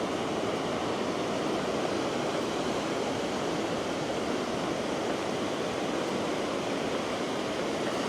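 Ocean surf washing up the beach at high tide, a steady rushing with no breaks.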